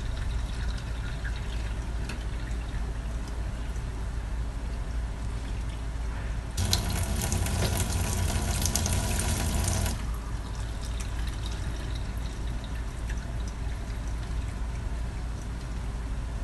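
Water running from a kitchen tap through a faucet-mounted water filter, a burst of about three seconds near the middle, over a steady low hum.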